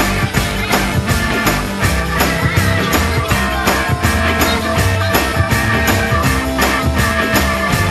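Rock song playing without singing: a band keeping a steady drum beat under sustained instrumental parts.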